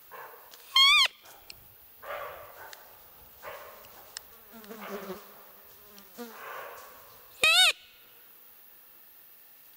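Roe deer call (hunter's lure) blown twice, about a second in and again near the end: short, loud, high squeaks that rise and then fall in pitch, imitating a roe deer to draw a rutting buck. Flies buzzing softly in between.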